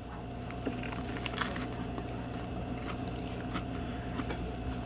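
A person chewing a mouthful of a chicken wrap made with crispy breaded chicken bites, giving faint, irregular crunches over a steady low hum.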